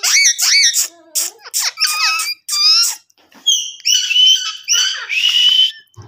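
Indian ringneck parakeets calling: rapid, high-pitched squeaky chatter with quick pitch bends for about three seconds, then harsher, drawn-out screeches through the second half.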